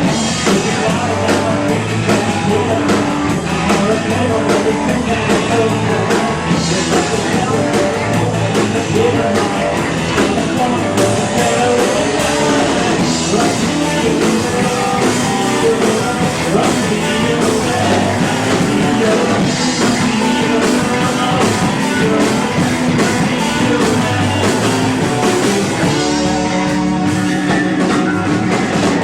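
Live rock band playing loud, with electric guitars, a drum kit and singing, recorded from the audience on a camera microphone.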